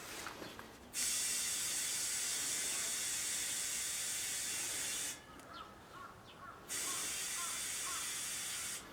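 Compressed air hissing in two long bursts, about four seconds and then about two, each starting and stopping sharply.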